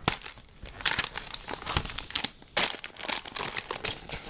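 Plastic bags of Lego pieces crinkling and rustling as they are handled, in several irregular bursts.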